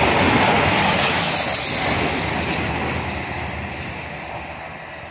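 East Midlands Railway Class 222 Meridian diesel multiple unit passing by, its wheel-on-rail running noise and underfloor diesel engines fading steadily as the train draws away.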